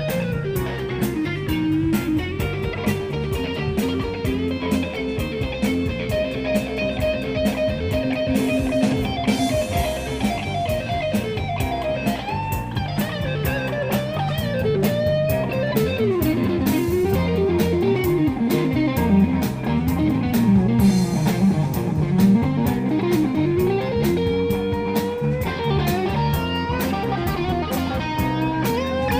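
Rock band playing live: an electric guitar plays a lead line with bent notes over bass and drums.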